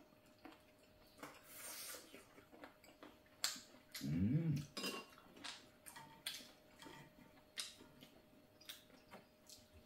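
Chopsticks and spoons tapping and clicking against bowls and plates at a meal, a dozen or so scattered light clicks. A short hummed murmur comes about four seconds in.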